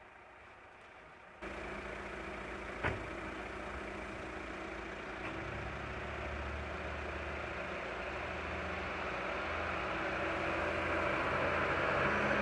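A motor vehicle engine running steadily. It comes in abruptly about a second and a half in and slowly grows louder, with a single short knock a little later.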